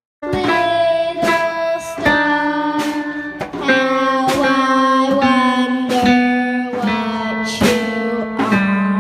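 A small band playing with a young girl singing held notes into a microphone, drum hits keeping the beat. The music starts abruptly just after a moment of silence.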